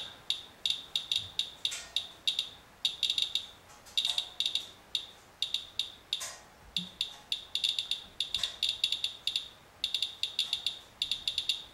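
Handheld Inspector Geiger counter chirping: short, high clicks in irregular clusters, several a second, each one a detected count. The rate is raised by a paper-towel wipe of rain-wet truck dirt reading about 8 to 9 times background.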